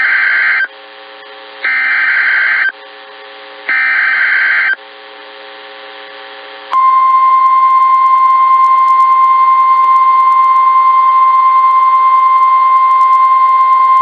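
NOAA Weather Radio Emergency Alert System signal: three short warbling SAME header data bursts, each about a second long and about a second apart. About seven seconds in, the steady 1050 Hz warning alert tone starts and holds on, marking the start of a hurricane warning broadcast. Radio hiss runs underneath.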